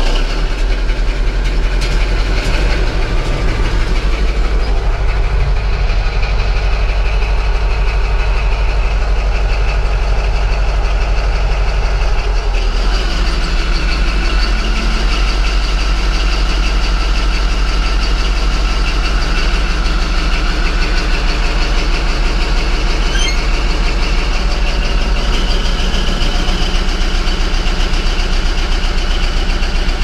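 CAT D11 bulldozer's big diesel engine catching right at the start and then running loud and steady, heard from inside the cab. Its note changes about twelve seconds in.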